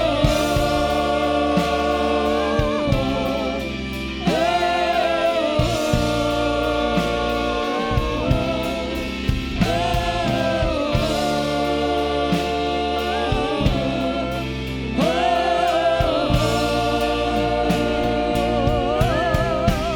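Worship band music: singers holding long, wavering notes in phrases of a few seconds, over a band with drums.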